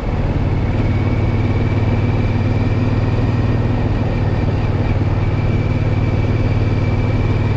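Triumph Scrambler 900's parallel-twin engine running steadily while the motorcycle cruises along the road; the engine note steps up slightly right at the start, then holds even.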